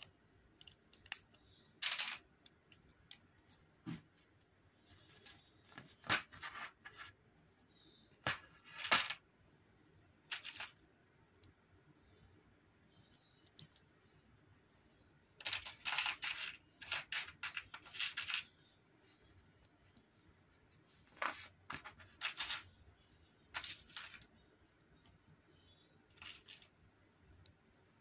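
Plastic Lego bricks and plates clicking and rattling as they are handled and pressed together, in scattered bursts of short clicks separated by pauses.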